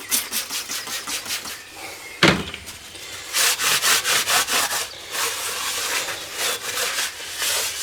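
A rag wiping down the face of a cast cylinder head in quick back-and-forth strokes, a few bursts of rubbing, with a single loud knock about two seconds in.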